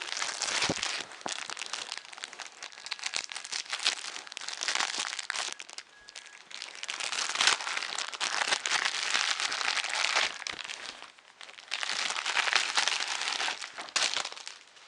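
Crinkling and rustling of packaging being handled and unwrapped, coming in bouts with short lulls.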